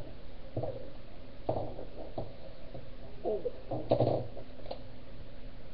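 Soft knocks and rustles from handling objects close to a webcam microphone, with a few brief murmured voice sounds, over a steady low hum.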